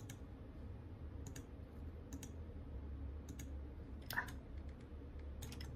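Computer mouse clicks: about six short, faint clicks spread out, some in quick pairs, over a low steady hum.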